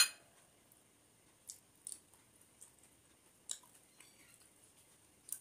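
A sharp clink of a steel bowl set down with a short ring at the start, then a few faint soft squishes and clicks of fingers mixing rice and curry on a metal plate, with some chewing.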